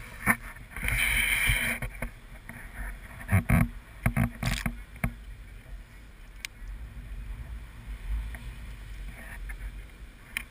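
A dog digging a hole in beach sand close to the microphone: paws scraping and throwing sand, with a noisy burst early and a few sharp knocks around the middle, over a steady low rumble.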